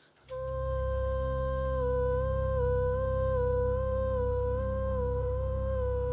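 A long hummed note held at one pitch, wavering slightly, over a deep low drone. It starts about a third of a second in.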